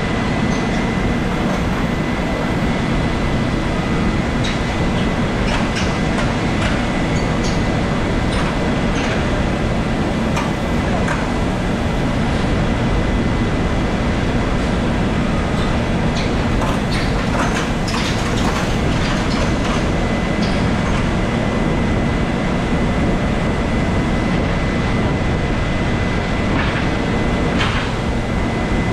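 Steady factory-floor noise from rotational moulding machinery: a constant low rumble under a thin, steady high whine. Scattered clanks and knocks sound as the kayak moulds are handled, most of them around the middle of the stretch and near the end.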